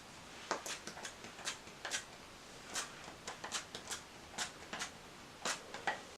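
Hands working through hair and a product jar: a string of small, irregular clicks and soft rustles, close to the microphone.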